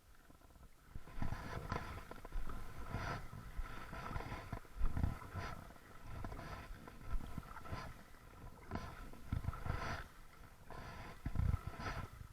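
Kayak paddle strokes dipping and splashing in lake water, roughly one every second or so, each with a low rumbling thump.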